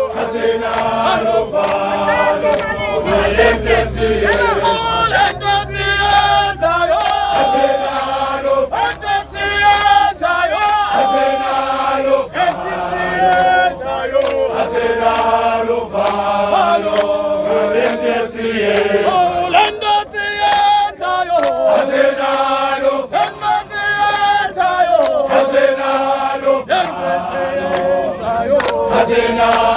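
A crowd of protesters singing a struggle song (igwijo) together in call-and-response harmony, with hand claps sounding through the singing.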